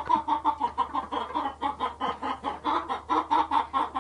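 Domestic hens clucking in a rapid, steady run of short clucks, about five a second. The hens are in their straw nest boxes getting ready to lay eggs.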